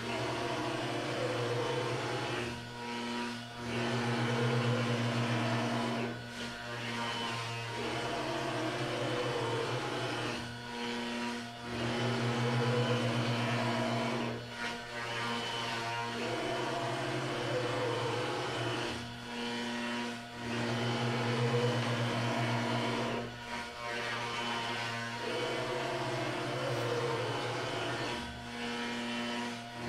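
CNC router spindle running an insert-type spoil board surfacing bit, skimming the spoil board flat in successive passes. It is a steady machine whine with short drops in level every few seconds.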